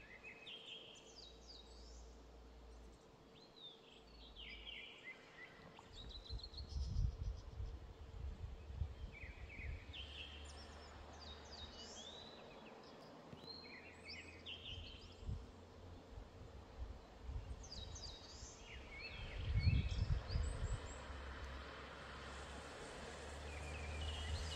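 Eurasian skylarks singing: quick, high chirping phrases one after another, over a faint steady hum, with two short low rumbles, the louder one near the end.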